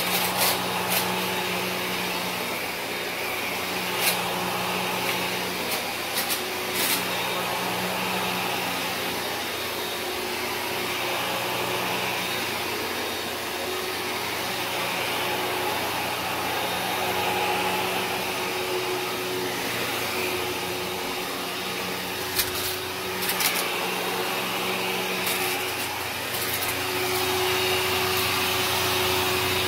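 Kenmore upright vacuum cleaner running steadily on carpet, its motor humming under a rush of suction. Sharp crunching crackles come every so often as it sucks up grit and debris already in the carpet.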